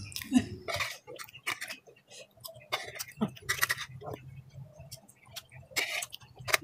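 A person eating: chewing small meatballs and noodles with wet mouth clicks, and a spoon or fork now and then clinking against a ceramic bowl in short, scattered taps.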